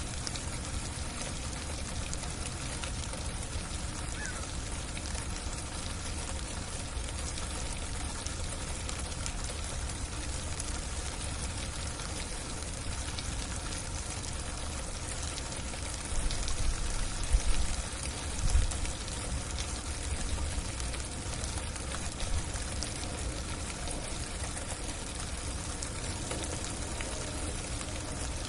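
Freezing, icy rain falling steadily on a roof: a dense, even hiss of small drops. A few louder, low bumps come about two-thirds of the way through.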